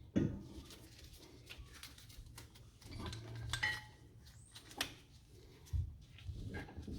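Scattered clinks and knocks of tools and brake parts being handled while a brake caliper is taken off. There is a sharp knock just after the start, a cluster of rubbing and clatter about three seconds in, then a single click and a dull thud.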